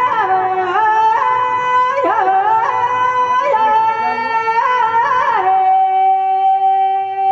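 A woman singing a Rajasthani Teja folk song solo into a microphone: ornamented phrases with bending notes, then one long held note from about five seconds in.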